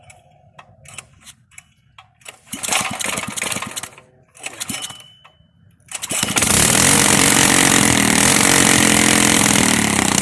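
Freshly built Predator 212 single-cylinder engine being pull-started on its first start: two pulls of the recoil starter, then about six seconds in it catches and runs loud and steady.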